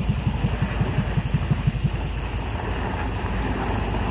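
A vehicle engine running, with a fast, regular low throbbing for about the first two seconds that then eases into a steadier rumble.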